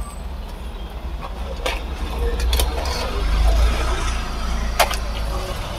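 A long metal rod clinking against a large iron frying wok as deep-fried dhakai parathas are lifted and stacked: three sharp clinks, the loudest near the end, over a steady low rumble.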